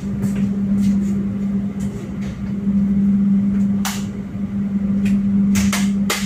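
Inside a moving passenger train carriage: a steady hum over a running rumble, with irregular sharp clacks and knocks from the running gear and carriage.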